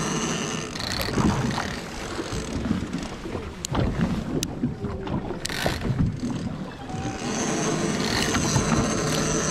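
Boat engine running steadily, with wind buffeting the microphone and water washing alongside, while the heavy big-game trolling reel is cranked. A few sharp clicks come in the middle.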